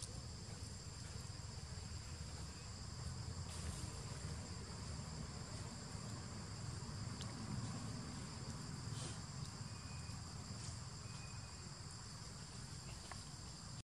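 Steady, high-pitched chorus of insects at two pitches over a low rumble, with a few faint ticks.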